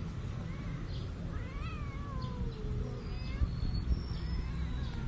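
A cat's drawn-out yowl from a mating pair, rising and falling in pitch, with a few shorter wavering calls after it, over a low rumble.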